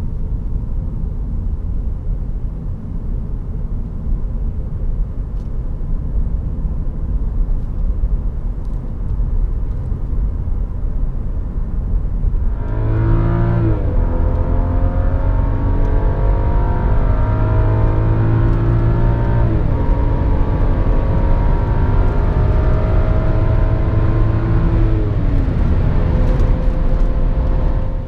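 2012 BMW 535i's turbocharged inline-six, heard from inside the cabin. For the first half there is only steady road and wind noise while cruising. About halfway through the engine note comes up under acceleration, and its pitch drops three times at the gear changes.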